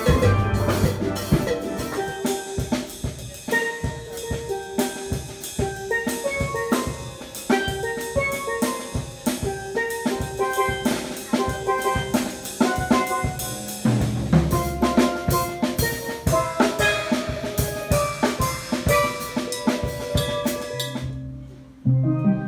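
Steel pan ensemble playing a fast rhythmic tune: quick struck ringing notes over low bass pan notes, with a drum kit keeping the beat. About a second before the end the music stops abruptly and a different piece with low notes begins.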